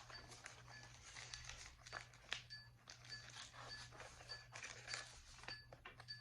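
Faint rustling and handling of paper, with scattered soft scrapes and taps, as the pages and pocket contents of a handmade paper journal are moved.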